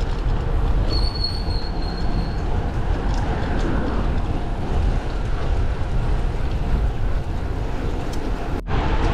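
Wind rushing over the microphone of a camera on a road bike moving at speed, a heavy, steady low rumble. About a second in, a thin high squeal sounds for about a second and a half. Near the end the sound cuts out for an instant.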